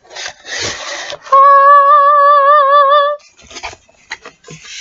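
Tape pulled off a cardboard shipping box with papery rustling, then a loud held high note with a regular wavering vibrato for about two seconds, then more rustling and clicks as the box is handled.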